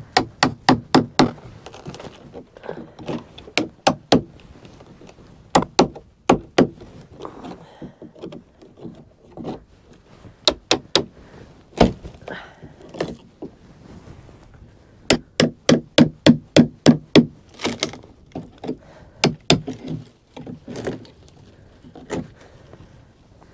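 Hammer striking a chisel to cut out rotten wood from a wooden boat's beam shelf and planking. The blows come in quick runs of several, about three a second, with short pauses between runs.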